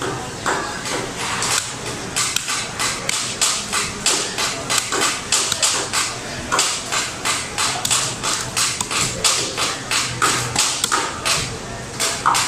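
Heavy knife chopping fish into pieces on a wooden log chopping block, sharp chops coming steadily at about three a second.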